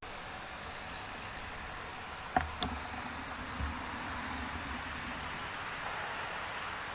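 Steady road noise of a car driving, with two sharp clicks close together about two and a half seconds in.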